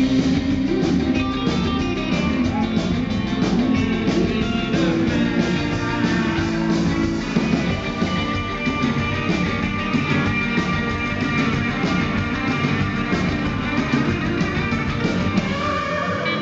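Live rock band playing, with a strummed electric guitar in the mix.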